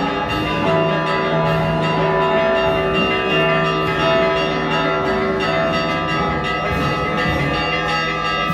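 Church bells ringing a continuous festal peal, many overlapping strokes and ringing tones, as they ring for a religious procession.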